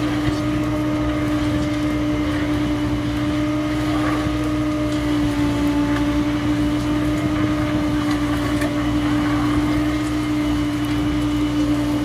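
Crawler excavator running steadily as its hydraulic earth auger drills into the soil: a continuous machine drone with one strong steady tone over a low rumble.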